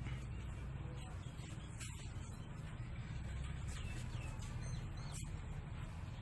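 Steady low background hum and noise, with a few faint high chirps about four seconds in.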